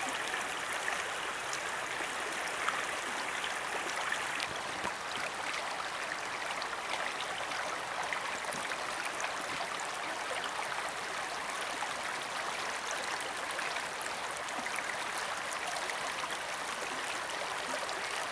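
Shallow water running and rippling over stones, a steady rushing sound.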